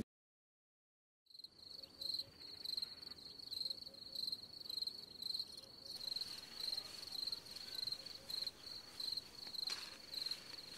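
Silence for about a second and a half, then a cricket chirping faintly and steadily, a high trill that pulses in an even rhythm of a little under two chirps a second.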